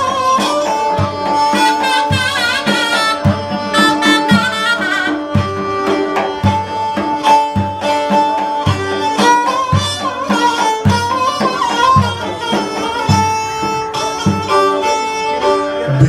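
Instrumental Turkish folk dance music: a bowed kemane (spike fiddle) carries a wavering melody over a steady low drum beat.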